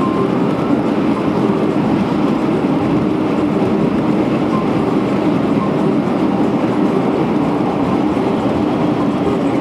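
Steady road and engine noise inside a car's cabin while it drives at highway speed.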